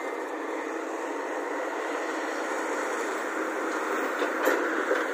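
Volvo crawler excavator's diesel engine running steadily under load as the machine swings and lifts a bucket of earth. Near the end come a few knocks as the earth drops into the tipper truck's body.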